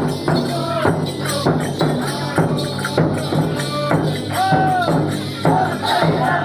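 Ringtone music: a gliding melody over a steady beat.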